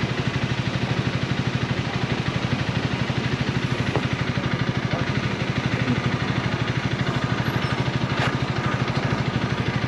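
Honda Rebel 250's single-cylinder engine idling, with a steady, even beat of firing pulses.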